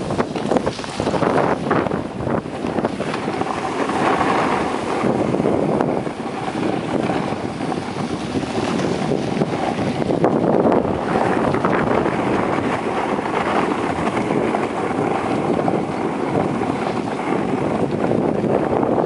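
Wind rushing over the microphone together with skis hissing and scraping on groomed snow during a downhill run, with some short crackly scrapes in the first few seconds.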